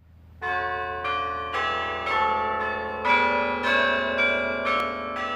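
Peace Tower carillon bells playing a melody. A new bell is struck about twice a second, and each note rings on under the next.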